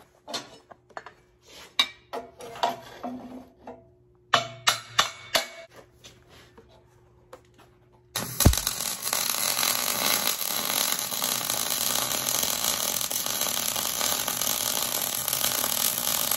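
Scattered clicks and knocks of steel parts being handled and set in place, then about halfway through a wire-feed welding arc strikes and runs on as a steady, loud crackling sizzle while a bead is laid on steel.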